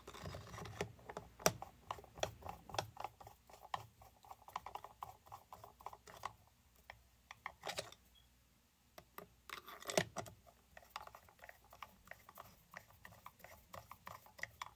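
Hand-tightening a chainsaw's cylinder screws with a Torx driver: irregular runs of light metallic clicks and taps, several a second. There is a louder knock about a second and a half in and another about ten seconds in, and a brief lull just before the second knock.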